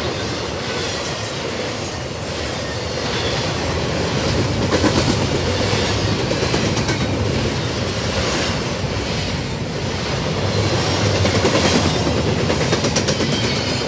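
Double-stack intermodal freight cars rolling past fast: a loud, steady rumble of steel wheels on rail with repeated wheel clacks.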